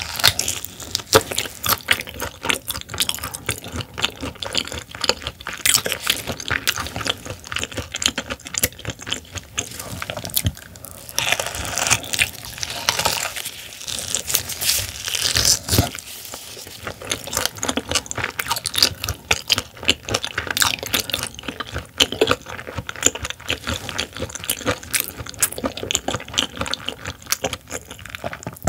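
Close-miked wet chewing and mouth sounds of someone eating raw silver pomfret (butterfish) sashimi: a dense, continuous run of small clicks and smacks.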